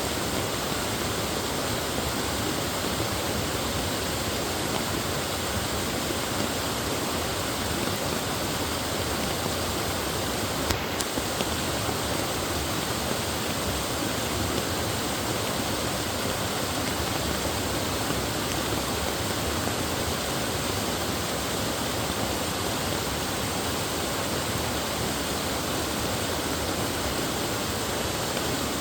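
Mountain stream rushing steadily over rocks in a valley, a constant even splash and gush of flowing water.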